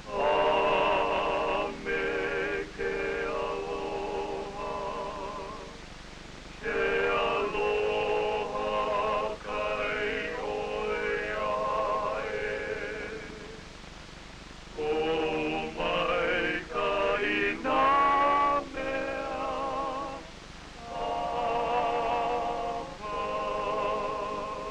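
Singers performing a hymn in long held phrases with vibrato, pausing briefly between lines.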